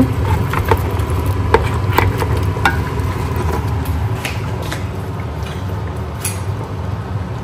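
Steady low kitchen hum with a handful of short, light clicks and knocks.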